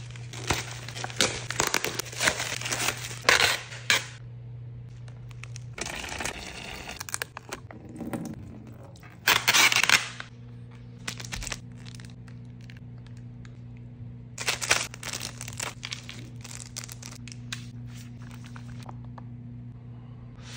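Plastic packaging of an instant cup noodle crinkling and tearing in irregular bursts as it is opened and handled, over a faint steady low hum.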